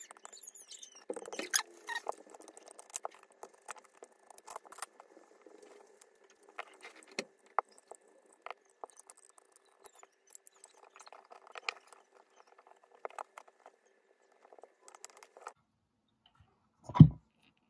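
Small screws being undone with a screwdriver and the plastic housing of a Proxxon MF70 milling head being pulled apart and handled: scattered light clicks, ticks and scrapes. A single louder thump comes near the end.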